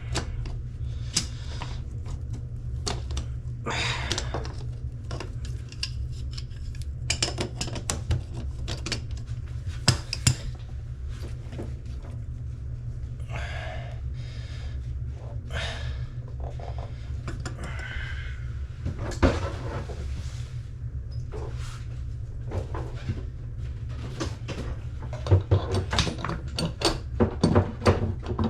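Irregular metallic clinks, knocks and rattles of hand tools and faucet fittings being worked under a sink, over a steady low hum.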